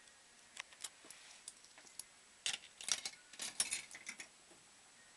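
Irregular light clicks and short metallic rattles in loose clusters: a few about half a second in, then a busier run of clicks in the second half before they stop.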